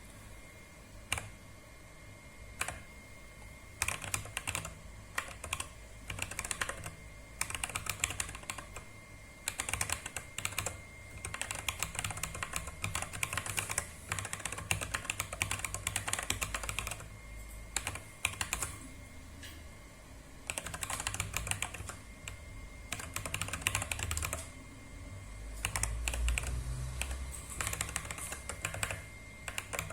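Typing on a compact 30-key mechanical keyboard: quick runs of key clicks broken by short pauses, after a few single keystrokes at the start.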